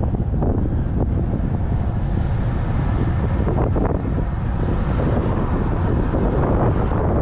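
Wind buffeting the microphone of a camera mounted on a road bicycle in motion: a steady, loud low rumble of rushing air.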